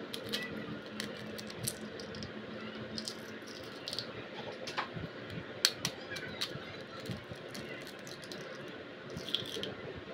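Quail eggs being cracked open over a small bowl: irregular small, sharp clicks and crackles of the thin shells being broken and picked apart, over a steady background hiss.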